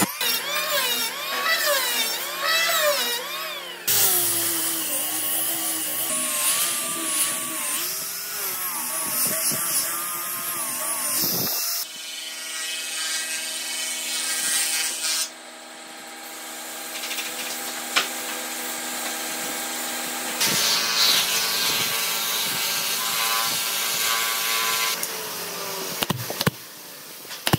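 A Maktec electric hand planer running and cutting a pine board, its whine dipping and rising as it cuts, followed by a run of other power-tool sounds with a steady pitched hum.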